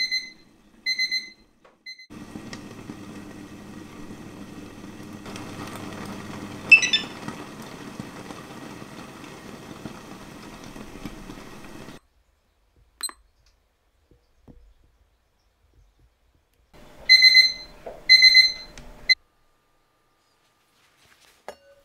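Short, high electronic kitchen beeps from a digital timer or the hob's controls: three beeps at the start and a few more in two quick groups about 17 and 18 seconds in. Between about 2 and 12 seconds there is a steady simmering hiss with a low hum from the covered cast-iron pot of rice on the hob.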